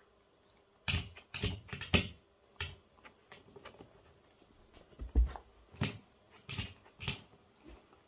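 An Australian Shepherd pawing at a baseboard where her door stopper toy has been removed: about a dozen irregular claw knocks and scrapes against the baseboard and its empty mount, with a heavier thump about five seconds in.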